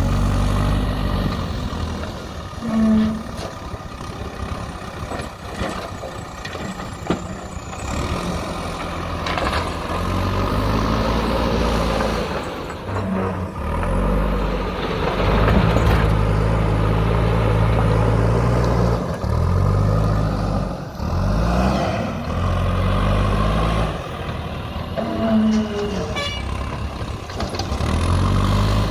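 Backhoe loader's diesel engine running, its speed rising and falling over and over. A brief tone sounds about three seconds in and again near the end.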